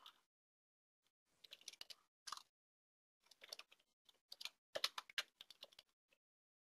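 Faint typing on a computer keyboard: quick runs of keystrokes in several short bursts, stopping about six seconds in.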